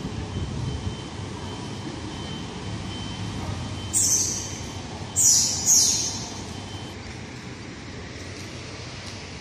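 Steady background noise with a faint, steady high whine, broken by three quick falling whooshes: one about four seconds in, then two more in quick succession a second later.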